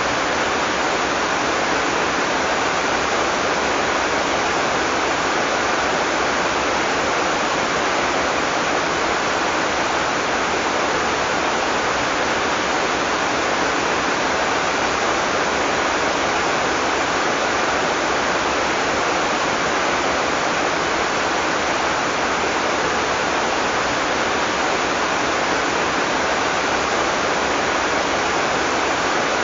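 Heavy tropical rain falling steadily, a dense even hiss with no thunder.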